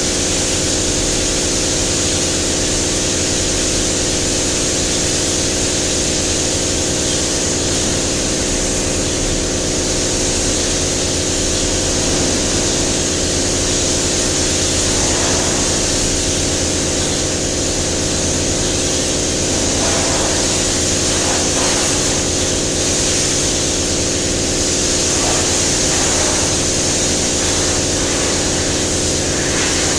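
Air spray gun hissing steadily while spraying the top coat onto a bus bumper, over a steady machine hum.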